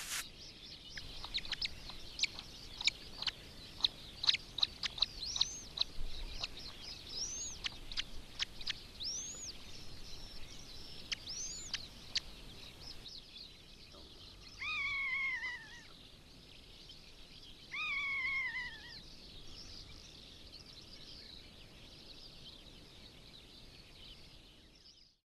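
Long-legged buzzard chicks calling rapidly from the nest with many short, thin, high chirps, some rising and falling. About halfway through, two longer falling calls come a few seconds apart, over faint continuing chirps.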